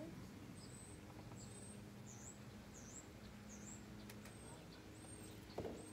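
A small bird chirping faintly outdoors: thin, high chirps repeated every half second or so, over a low background hum. A light knock near the end.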